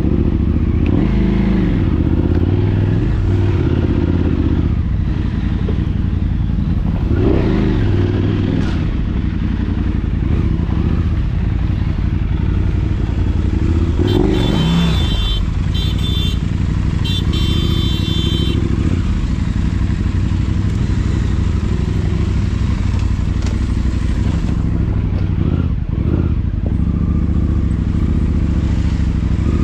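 Motorcycle engine running steadily. A short run of high beeps comes about halfway through.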